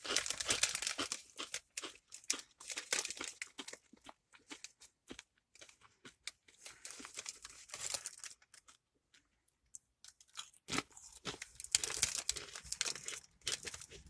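A bag of Doritos crinkling and the tortilla chips being crunched and chewed close to the microphone, in several spells of crackling with a short pause near the middle.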